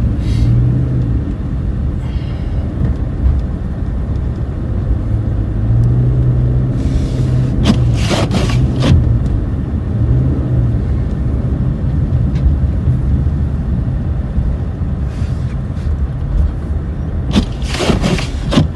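Car driving: a steady low rumble of engine and road noise, broken by a few brief sharp noises about eight seconds in and again near the end.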